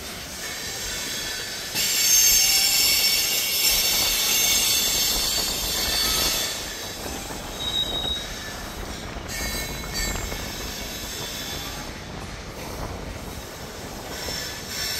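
Freight train hopper cars rolling past with their steel wheels squealing against the rails. A loud, high-pitched squeal starts about two seconds in and fades about six seconds in, and shorter, fainter squeals come back near ten seconds and near the end, over a low rolling rumble.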